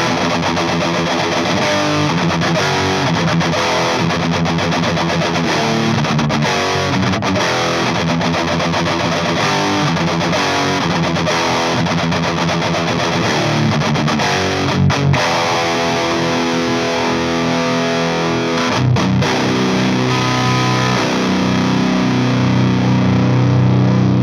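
Overdriven electric guitar, a Gibson Flying V with PAF-style humbuckers through a cranked 1972 Marshall JMP50, playing a distorted rock riff of changing notes and chords through a close-miked guitar speaker. It stops briefly twice midway, then ends on sustained low chords that are left ringing.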